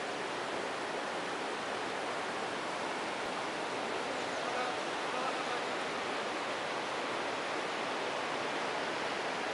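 River water flowing steadily over rocks, an even hiss with no breaks.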